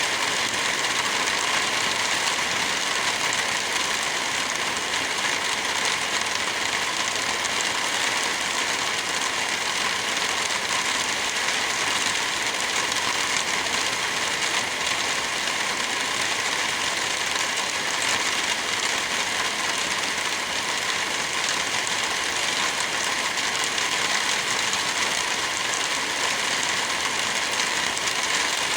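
Heavy rain falling steadily, an even hiss that holds at one level throughout.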